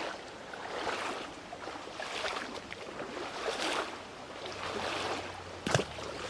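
Shallow stony creek running, with swishing that swells and fades about once a second, and a single sharp click near the end.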